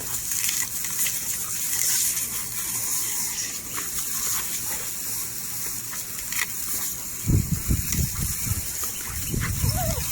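Lawn sprinkler spraying water, a steady hiss. Low rumbling thumps come in about seven seconds in.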